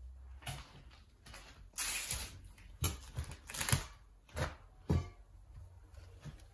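Footsteps crunching over debris and broken wooden boards: about seven uneven steps with crackling and low thuds, the loudest about two and three and a half seconds in.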